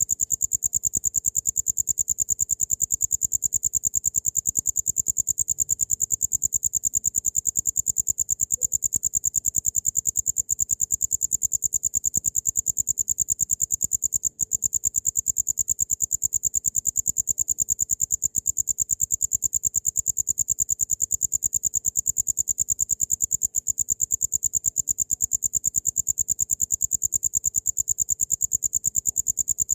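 Cricket chirping in a steady, rapid train of high-pitched pulses, with one brief break about halfway through.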